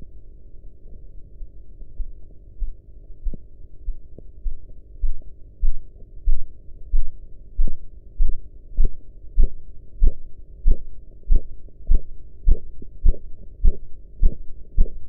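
Korotkoff sounds through a stethoscope on a blood pressure check: rhythmic thumps of the pulse, a little under two a second. They start faint and grow much louder and sharper about eight seconds in as the cuff pressure falls into the range where blood spurts through the artery with each beat.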